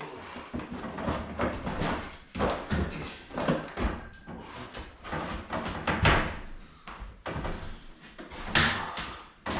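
Knocks, bumps and scraping of things being handled and moved about, with louder thumps about six seconds in and again near the end.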